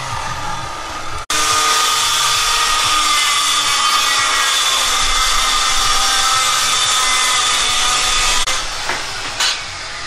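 A power saw cutting steadily: a loud, harsh whining hiss that breaks off for an instant about a second in, then runs on and eases off near the end.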